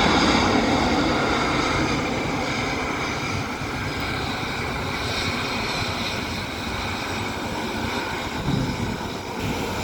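Lion Air jet airliner landing: steady engine and rushing-air noise that slowly fades.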